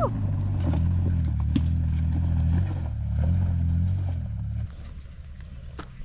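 A 4x4's engine labouring up a rocky track, its pitch stepping up and down a few times under throttle. It falls away about three-quarters of the way through, leaving a fainter rumble with scattered clicks of stones.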